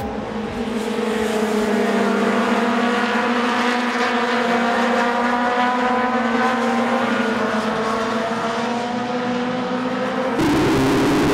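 A pack of vintage racing motorcycles at full throttle, several engine notes overlapping and gliding slowly in pitch as they pass. Near the end the sound abruptly turns louder.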